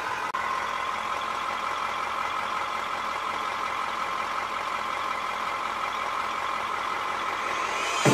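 KamAZ-43118 truck's diesel engine idling steadily, heard from inside the cab.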